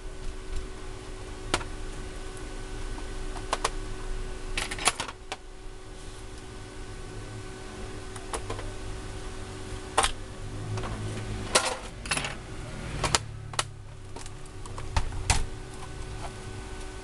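Scattered clicks and light knocks of plastic and metal PS4 console parts being handled and unscrewed by hand, some coming in quick clusters, over a steady low hum.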